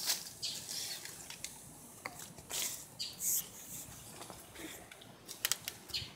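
Scissors snipping and fern fronds rustling as they are pulled and trimmed by hand: scattered faint clicks and rustles, with a cluster of sharper clicks near the end.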